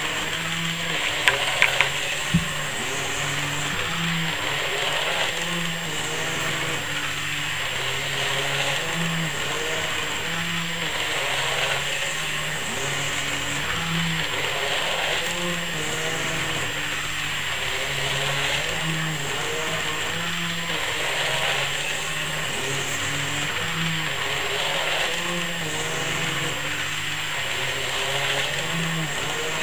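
Small electric motor of a model tram running steadily with a whirr, with a few sharp clicks about a second or two in.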